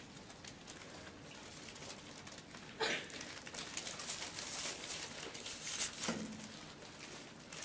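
Handling noise at a lectern: low room tone, a sharp knock about three seconds in, then a few seconds of rustling.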